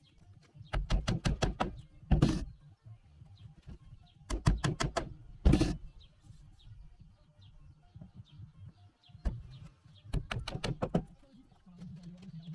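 Hammering on timber during joinery: three bursts of quick, sharp blows, about a second in, around four to five seconds in and around ten seconds in, the first two each ended by a single harder blow. Faint bird chirps come between the bursts.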